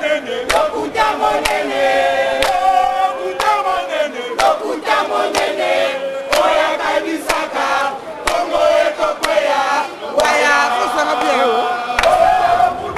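A crowd of marchers chanting and singing together, with sharp handclaps about once a second.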